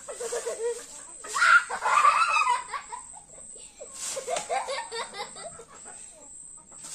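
Young girls laughing and shrieking while they play, loudest in a burst about a second in, then more laughing and chatter. A steady high hiss runs underneath.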